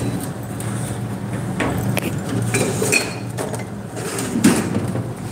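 Metal hand tools clinking and knocking together, a few separate strikes with short metallic rings, as a blacksmith rummages for a tool. A steady low hum runs underneath.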